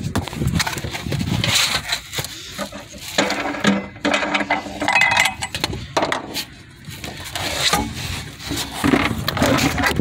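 Rummaging in a car trunk: irregular knocks, clunks and rustling as the trunk floor cover is handled to get at the steel spare wheel and jack.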